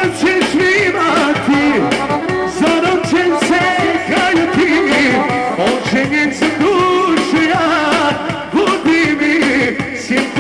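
Loud live band music in a Balkan folk-pop style: a steady beat under a twisting, ornamented melody line, with singing into a microphone.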